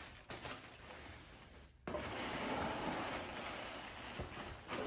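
Clear plastic air-cushion packing rustling and crinkling as it is handled inside a cardboard box, starting about two seconds in, with a few sharper crackles near the end.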